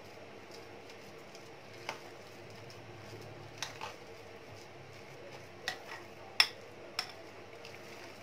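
A spoon clinking against a glass mixing bowl as a thick chickpea kabab dough is stirred: several sharp clinks, the loudest about six seconds in, over a faint low hum.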